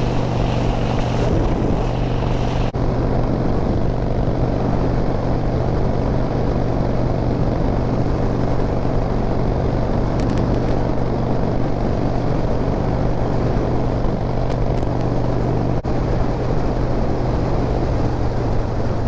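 Harley-Davidson V-twin motorcycle engine running at a steady cruising speed, an even drone that holds the same pitch throughout.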